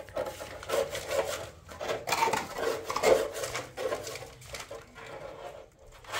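Irregular rasping and scraping strokes of rubbing against a mud-plastered block wall, as mud is worked over the blocks by hand.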